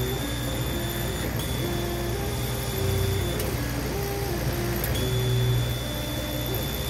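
A 50-watt CO2 laser cutter at work cutting 1/8-inch plywood. A steady low hum runs under a stepper-motor whine that jumps between short tones as the head traces the cut pattern, with a thin high whine that cuts out and comes back every second or two.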